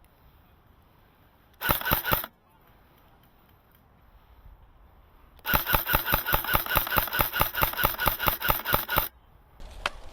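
Airsoft electric rifle firing on full auto: a short half-second burst about two seconds in, then a longer burst of about ten shots a second lasting three and a half seconds.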